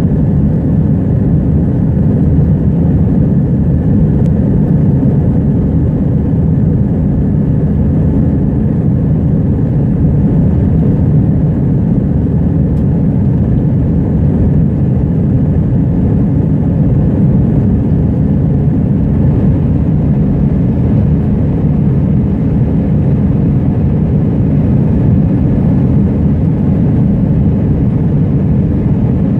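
Steady low rumble inside a jet airliner's cabin: engine and airflow noise heard from a window seat in flight.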